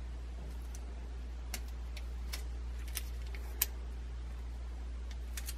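About five faint, sharp clicks of small metal parts being handled, spaced irregularly, over a steady low hum.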